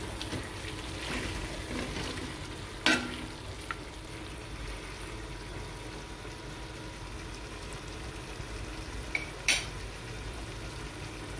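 Mutton, tomatoes and green chillies sizzling as they fry in a stainless steel karahi, a steady hiss, with two sharp knocks of a utensil against the pan, one about three seconds in and one near the end.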